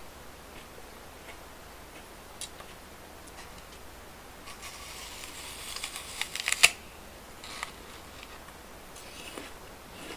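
Close-miked bite into a crisp apple: a burst of crackling crunches building over about two seconds and ending in one loud snap. A few fainter crunches follow.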